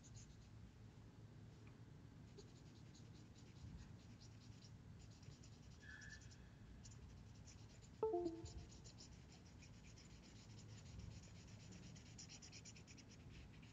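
Yellow marker quickly shading on sketchbook paper: faint, rapid scratching strokes. A brief pitched sound stands out about eight seconds in.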